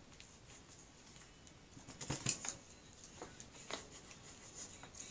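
Faint scattered crinkles and light taps as clear transfer tape carrying a vinyl decal is pressed and smoothed by hand onto a chunky-glitter tumbler; the loudest few come about two seconds in.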